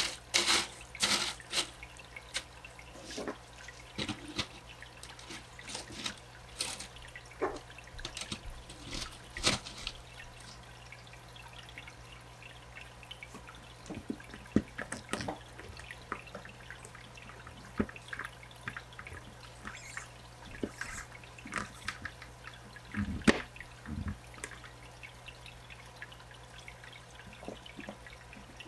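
Clinks and rattles of small filter-media balls being packed by hand into the plastic basket of a canister filter, dense for the first ten seconds or so. Then scattered clicks and taps of plastic parts and clear tubing as a hose is fitted to the pump outlet, over a faint steady low hum.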